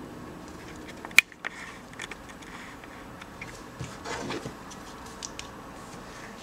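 Smartphones being handled: one sharp click about a second in, then a few light clicks and taps with a short rustle of handling around four seconds in, over a steady faint hiss.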